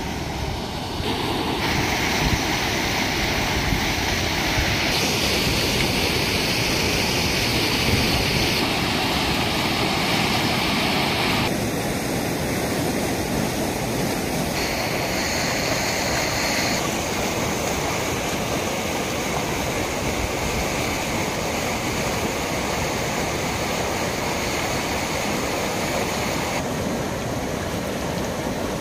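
Steady rushing of water, a dense even hiss with no distinct drops or strokes. Its tone changes abruptly several times.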